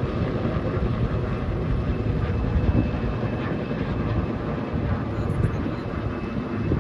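Firefighting helicopter flying overhead with a water bucket slung beneath it: a steady rotor and engine sound.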